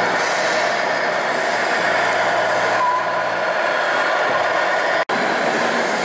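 Steady mechanical running noise of radio-controlled model trucks driving on a track, with a brief dropout about five seconds in.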